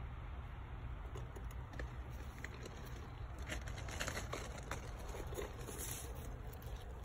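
Tomato plant leaves and stems rustling and crackling as they brush against the phone moving in among them, thickest about midway through, over a steady low rumble.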